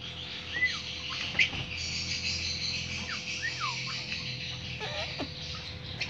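White-browed crake giving a few short, down-slurred chirping calls over a steady high-pitched hiss.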